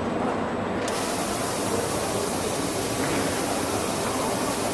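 A high-speed Nakanishi E4000 motor spindle's small deburring wheel grinding the end-milled surface of a clear plastic workpiece. The grinding gives a steady, even hiss that sets in suddenly about a second in and covers the spindle's faint high whine.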